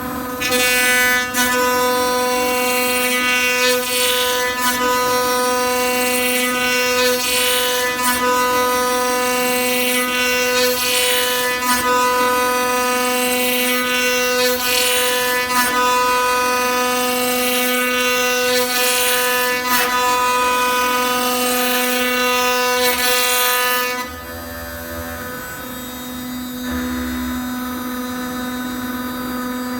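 CNC router spindle running with a steady high whine while the bit cuts wood, the cutting noise swelling and fading with each pass of the tool. About 24 seconds in the cutting noise stops and the spindle runs on alone, quieter.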